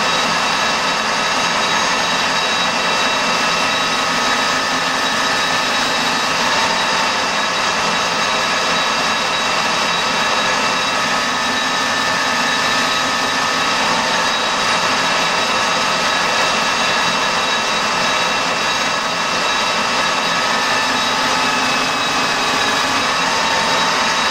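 Colchester gear-head metal lathe running steadily, with a steady whine over a hiss, as a tool cuts concentric rings into the face of a turned metal faceplate.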